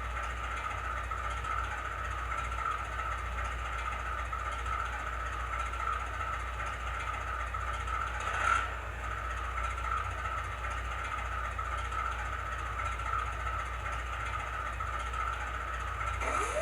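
Recorded GE AC44C6M locomotive prime mover idling, played by an ESU LokSound decoder through the HO-scale model's small speaker, with a steady high hum over a low rumble. A short, sharp noise about halfway through, and a rising tone starts just before the end.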